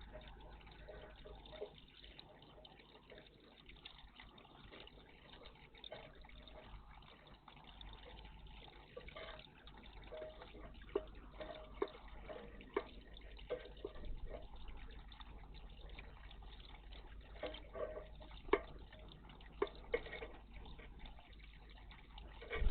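Water in a bird bath, with small splashes and drips coming more often and more sharply in the second half.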